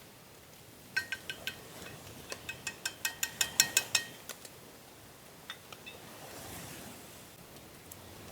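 Metal clinking of a utensil against cookware: four light taps about a second in, then a run of louder clinks that comes faster and faster, and a few faint ones later.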